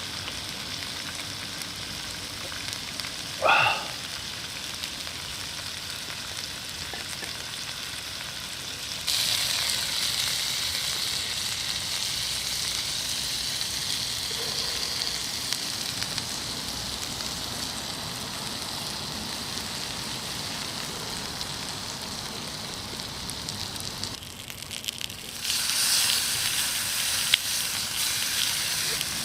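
Jingisukan lamb sizzling on a grill over a wood fire: a steady frying hiss that grows louder about nine seconds in and again near the end. A short rising squeak about three and a half seconds in.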